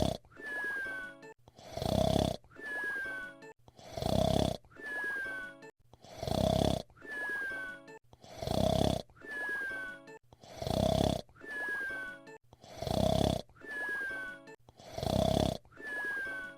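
Cartoon whistle-snore: a loud snore followed by a short falling whistle, repeating evenly about every two seconds, some eight times.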